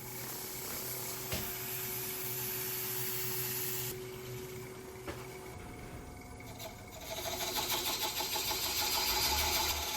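Wood lathe running, with a steady motor hum and hiss; about seven seconds in the sound grows louder and rougher.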